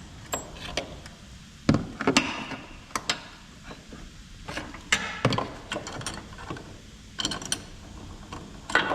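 Hand tools working on a Jeep Wrangler JK's front shock mounting nut: a ratchet wrench clicking and metal tools clinking, in irregular sharp knocks with a quick run of clicks near the end.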